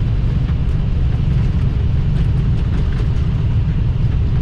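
Cockpit of an Airbus A320 rolling out on the runway just after landing, with the crew on manual braking: a loud, steady low rumble with a few faint ticks.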